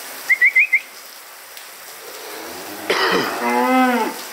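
Four quick rising whistled notes from a person, then a Holstein cow mooing once for about a second, its pitch falling at the end, over the patter of rain.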